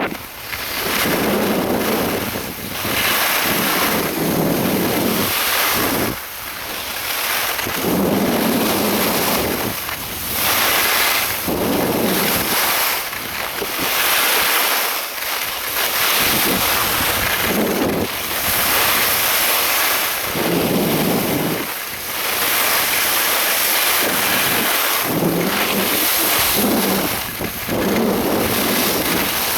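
Wind buffeting an action camera's microphone during a fast downhill ski run: a loud rush that swells and eases every second or two.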